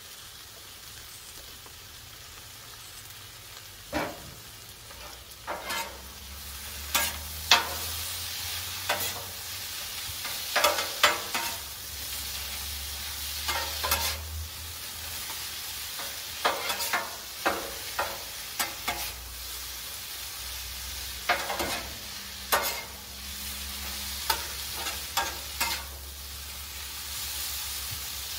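Udon noodles, vegetables and chicken sizzling steadily in peanut oil on a Blackstone flat-top griddle. From about four seconds in, metal spatulas scrape and clack against the steel cooktop in irregular bursts as the food is tossed.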